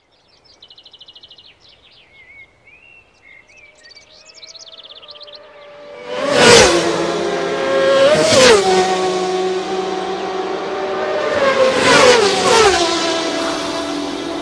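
Birds chirping while an engine note rises in the distance, then Isle of Man TT race motorcycles pass flat out: one about six seconds in, another about two seconds later, and two more close together near twelve seconds, the pitch dropping sharply as each goes by, with the engines' note hanging on between passes.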